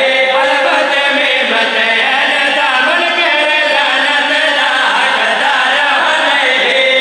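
A group of men singing a devotional chant together into microphones, one voice-led melody carried continuously.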